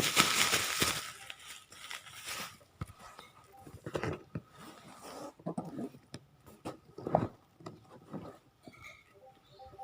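Handling noise: a burst of rustling for about the first two and a half seconds, then scattered knocks and clicks.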